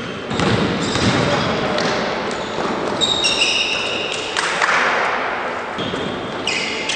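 Basketball bouncing on a sports-hall floor, with brief high squeaks of sneakers on the court as players run, echoing in the large hall.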